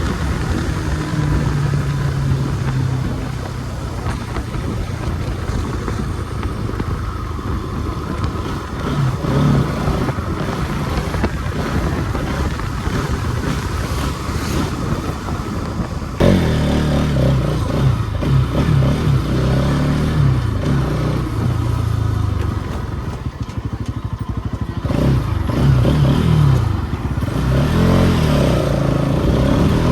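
Bajaj Pulsar NS200 BS6 motorcycle's single-cylinder engine running under way, its revs rising and falling as it accelerates and eases off. It gets louder and deeper about halfway through.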